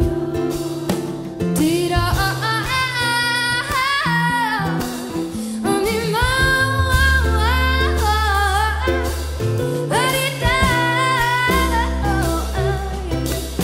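A woman singing a slow melody with long held, gliding notes over acoustic guitar and band accompaniment with a low bass line; the voice comes in about two seconds in.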